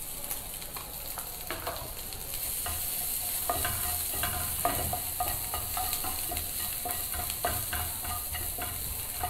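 Sweet corn kernels frying in melted butter in a frying pan, stirred with a wooden spatula: a steady sizzle under repeated scrapes and knocks of the spatula on the pan. The stirring gets louder about two seconds in.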